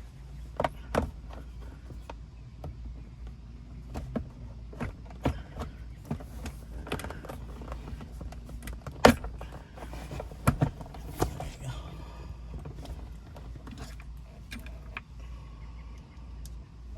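Scattered plastic clicks and knocks from a Toyota Camry centre console lid and its trim being handled and fitted, as the plastic is pried out and the lid's bracket is pushed in behind it, over a low steady hum. The sharpest knock comes about nine seconds in.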